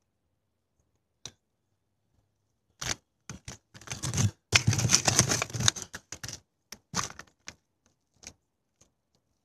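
Camera handling noise: rubbing, scraping and rustling right against the microphone. It starts with a couple of sharp clicks, turns into a dense stretch of scraping about four to six seconds in, the loudest part, and ends with more scattered clicks.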